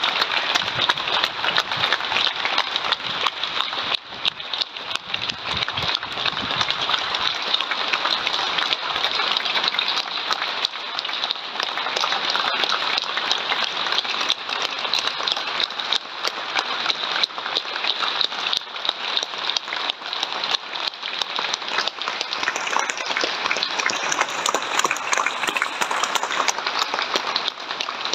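Crowd applauding without a break, with one person clapping close by.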